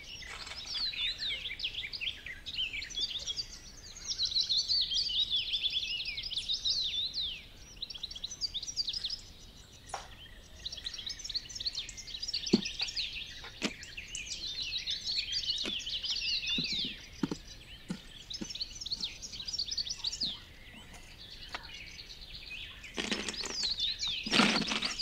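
Many small birds chirping and singing densely, with lots of quick falling notes. Scattered light knocks and clicks come through, and a louder rustling noise rises briefly near the end.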